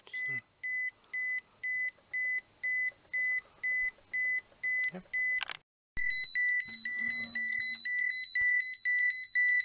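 TERRA-P handheld radiation dosimeter sounding its dose-rate alarm: a high, even beep repeating about two to three times a second, the sign that the measured radiation is above its alarm threshold. A knock comes about five seconds in, then a brief drop-out, after which the beeping carries on with shorter gaps.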